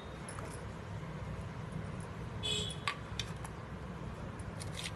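A few faint, light clicks and ticks as chili powder is spooned onto puffed rice in a steel bowl, over a steady low background hum.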